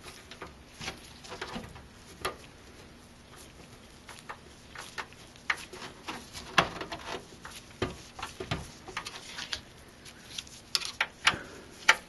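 Screwdriver turning power-supply mounting screws into the steel back panel of a PC case: irregular small metallic clicks and scrapes, with a few sharper clicks in the second half.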